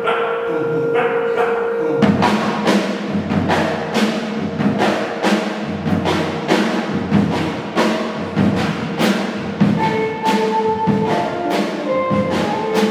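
Live jazz quartet of acoustic guitar, electric bass, drum kit and trombone playing a rhythmic improvisation. A note is held for about two seconds, then the drums set a steady beat of sharp hits about twice a second under bass and guitar, with short melodic notes coming in near the end.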